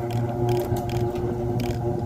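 Battery-powered remote-control toy lawnmower running with its three blades spinning: a steady electric motor hum with a few short sharp ticks over it.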